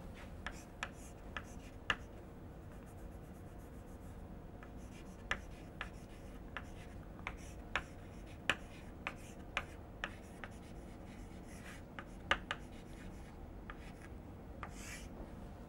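Chalk writing on a blackboard: faint, irregular taps and short strokes of chalk as letters are written.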